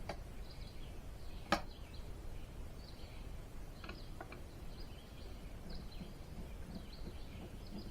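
Quiet background noise with faint bird chirps, and a single sharp click about a second and a half in.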